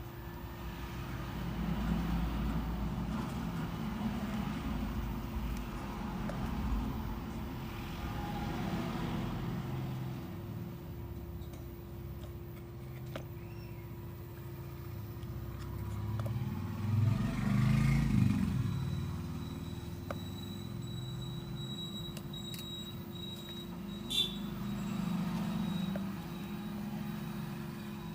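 Low engine rumble of road traffic that rises and falls, loudest when one vehicle passes about two-thirds of the way through, over a steady low hum, with a single click near the end.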